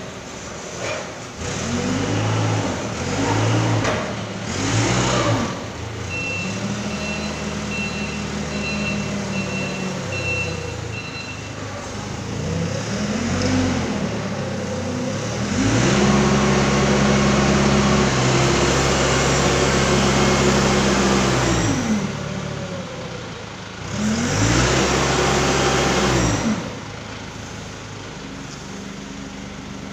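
Forklift engine revving up and down in several bursts, with one long, higher rev of about five seconds in the middle, as the truck drives and works its lift mast. A reversing beeper sounds about nine times in a row a few seconds in.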